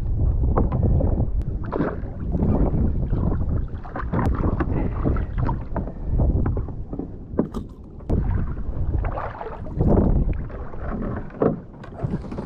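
Wind buffeting the microphone and choppy water washing against a fishing kayak's hull, a rumbling noise that rises and falls in gusts. A few sharp knocks come through over it.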